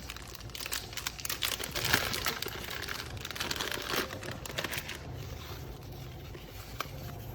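Paper crinkling and rustling as it is handled, with dense crackling most of all in the first half, thinning out after about five seconds.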